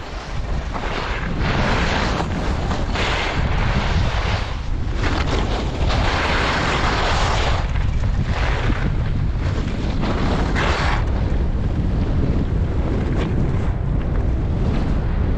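Steady wind rumble on the microphone of a moving skier, with skis hissing through snow in repeated surges that stop about eleven seconds in.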